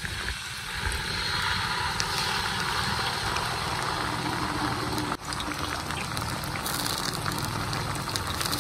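Chopped garlic, ginger, green chillies and curry leaves sizzling steadily in hot oil in an iron kadai as red chilli sauce and tomato sauce are poured over them, with a brief break about five seconds in.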